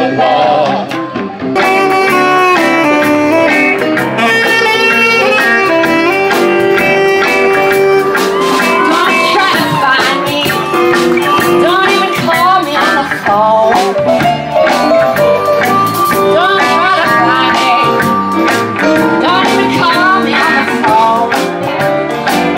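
Live band playing with a woman singing lead over electric guitar, bass and drums. About a second and a half in, the music cuts abruptly from one song to another.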